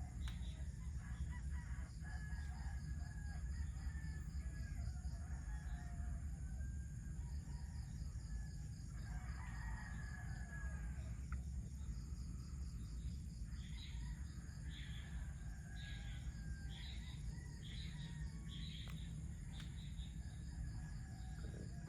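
Roosters crowing and other birds calling, with a run of short repeated calls, about two a second, in the second half. Everything sits over a steady low rumble.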